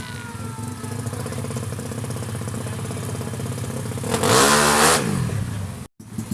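Tuned 200cc drag-race motorcycle engine running steadily, then revved hard for about a second, about four seconds in, before dropping back. The sound cuts out briefly near the end.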